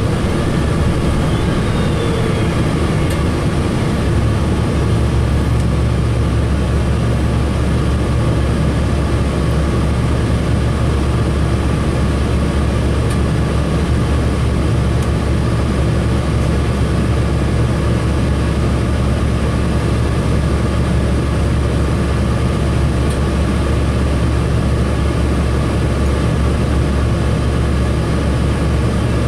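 2007 Gillig Phantom transit bus engine running steadily, a low drone that grows stronger about five seconds in.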